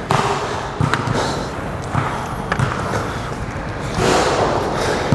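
Basketballs bouncing on an indoor court during a drill: a few separate, irregular thumps over the general noise of the practice.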